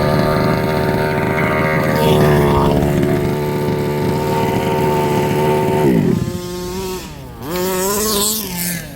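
A 1/5-scale RC buggy's small two-stroke petrol engine running at a steady speed, then dropping off about six seconds in and revving up and back down once near the end.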